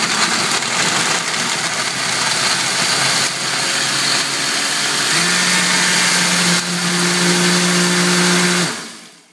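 Countertop glass blender running at full speed: a loud, dense churning noise. About five seconds in, a steady motor hum comes through, and near the end the blender is switched off and winds down.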